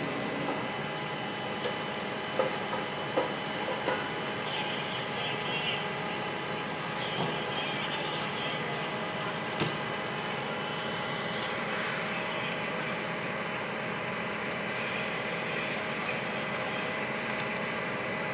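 Fire trucks' engines running steadily, a constant mechanical noise with several steady tones through it. A few sharp pops come in the first ten seconds.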